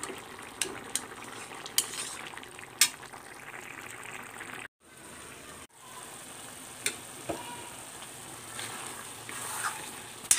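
An eggplant, potato and tomato curry sizzles in a steel kadai while a metal spoon stirs it, clinking and scraping sharply against the pan several times. The sound cuts out for about a second midway.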